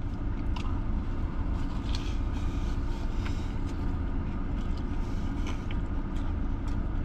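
Steady low rumble of a car's idling engine heard from inside the cabin, with a few faint small clicks over it.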